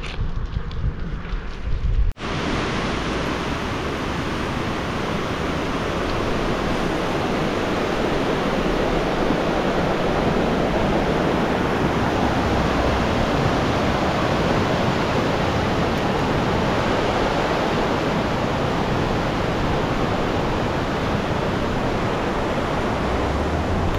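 Wind buffeting the microphone while cycling, cut off abruptly about two seconds in by the steady rush of water tumbling over rocky river rapids.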